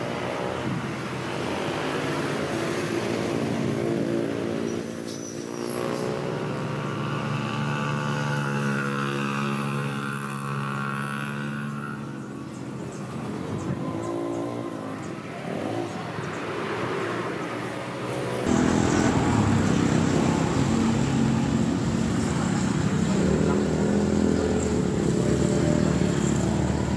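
Motor vehicle engines running on the street, one rising and falling in pitch midway as it revs or passes. About two-thirds through it gets suddenly louder, becoming a steady low engine rumble.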